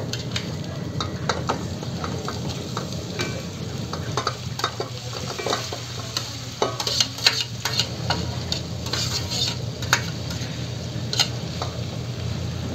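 Raw chicken pieces dropped into hot oil with sautéed onion and garlic in an aluminium pot, sizzling and frying, while a metal utensil clinks and scrapes against the bowl and pot as the pieces are scooped in and stirred. The clinks come thick and loudest in the second half.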